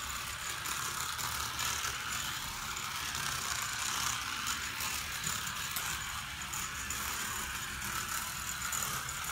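Small battery-powered light-up toy car running steadily along a plastic toy track, its motor whirring.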